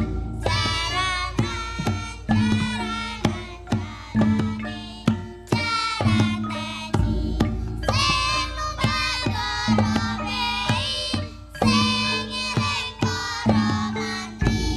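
Javanese gamelan (karawitan) ensemble playing jaranan music: sung vocal lines over sharp hand-drum strokes and a recurring held low tone.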